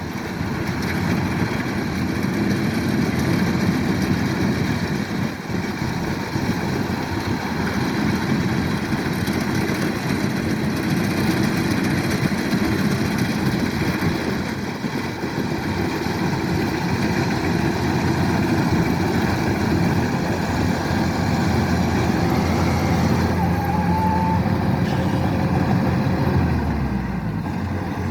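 Kubota DC-105X rice combine harvester's diesel engine and machinery running steadily. Shortly before the end, a low engine note falls in pitch.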